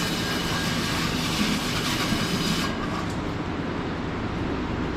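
Milking parlour machinery running with a steady low drone, under a loud hiss of rushing air or spray that cuts off suddenly about two and a half seconds in.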